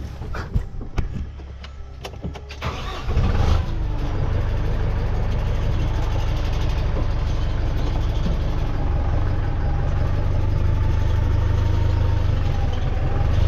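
A few clicks and knocks, then a tractor engine cranked and started about three seconds in, then running steadily.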